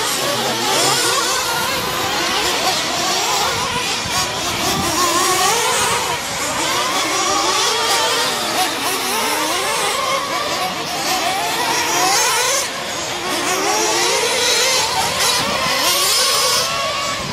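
Several radio-controlled racing trucks running together, their motors whining and rising and falling in pitch over and over as they accelerate and brake around the track.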